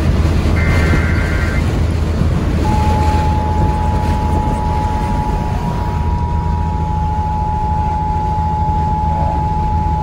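Radio emergency alert for a severe thunderstorm warning: a one-second burst of data tones early on, then a long single steady alert tone starting about three seconds in. Underneath is the steady drone of a semi truck's engine and road noise inside the cab.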